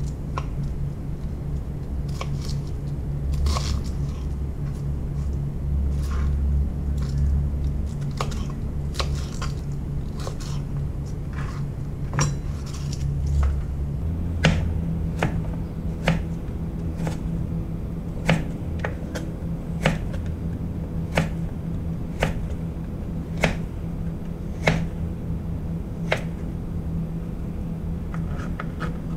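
Chef's knife chopping on a plastic cutting board, first light scattered taps through cabbage leaves, then firm knocks about once a second as it cuts through carrot from about halfway on. A steady low hum runs underneath.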